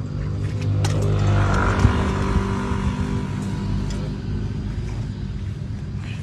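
A motor vehicle engine running steadily. It grows louder from about one to three seconds in, then slowly fades, like a vehicle passing. A couple of short sharp knocks sound over it.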